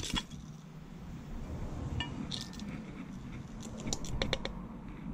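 Metal clinks and handling noise as the stator and rectifier assembly is worked out of a BMW K100 alternator's aluminium housing by hand, with a quick run of clicks about four seconds in.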